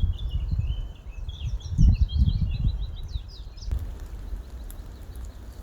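A songbird singing a rapid run of chirps and trills, which stops abruptly about three and a half seconds in, over a low rumbling noise that is loudest about two seconds in.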